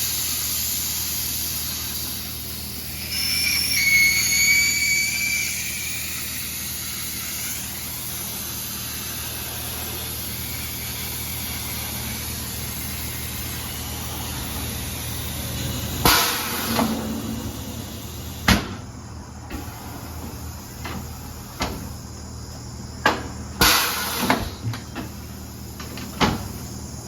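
Air hissing out of a car tire through the open valve stem for the first couple of seconds, then a brief whistling squeal. Later, after a steady low hum, a series of scattered knocks and clunks from the wheel and tire being worked on to break the bead.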